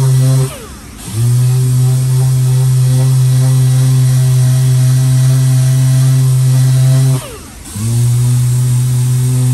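Random orbital sander running steadily while sanding body filler on a car door. It stops twice, about half a second in and again about seven seconds in, spinning down each time and then starting up again.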